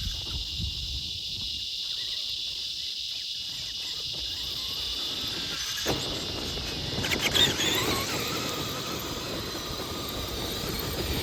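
Traxxas Summit RC truck's stock electric motor and drivetrain whining as it drives through sand, a steady high-pitched whine. A few rising whines about seven seconds in, as the throttle is applied.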